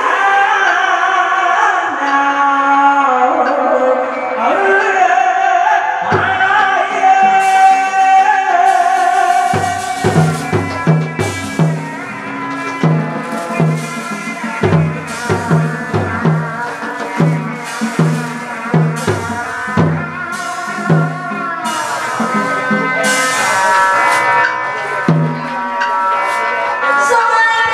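Hát bội (tuồng) theatre music: a wavering melodic line over percussion, then from about ten seconds in a steady run of low drum beats, about two or three a second, under the melody.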